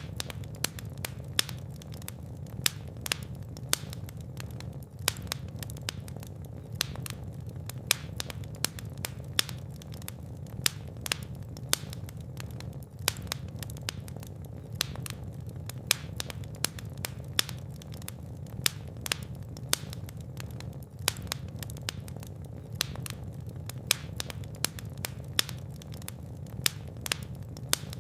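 Fire in a fireplace crackling, with frequent irregular sharp pops over a steady low rumble of flame.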